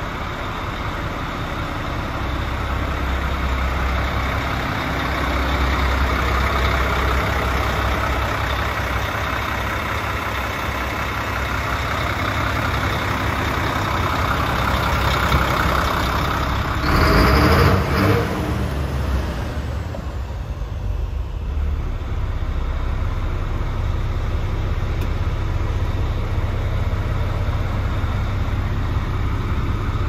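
DAF CF75 310 truck's six-cylinder diesel engine idling steadily, with a brief loud burst of noise about seventeen seconds in.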